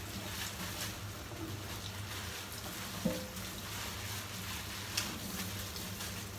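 Water running steadily from a kitchen tap during washing, with one knock about three seconds in and a smaller click near five seconds.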